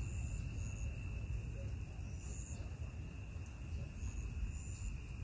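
Night insects chirping: short high chirps about once a second over a steady high drone, with a constant low rumbling noise underneath.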